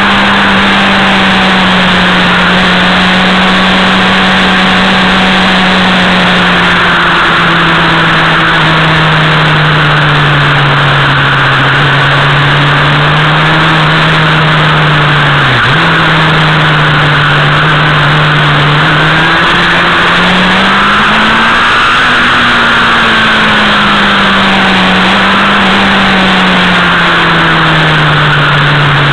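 Motorcycle engine running steadily at road speed, heard from on board, over a constant rush of wind and road noise. The engine pitch drifts gently up and down through the curves, dipping sharply for a moment about halfway through and rising and falling again a little later.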